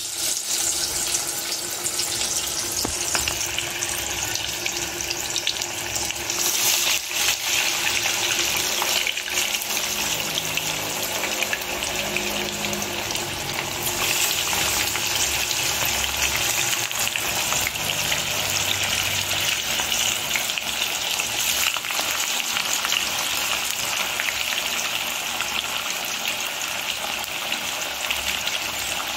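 Banana-flower and chana dal vadai patties deep-frying in hot oil in an iron kadai: a steady crackling sizzle that swells about seven seconds in and again from about halfway through, as more patties go into the oil.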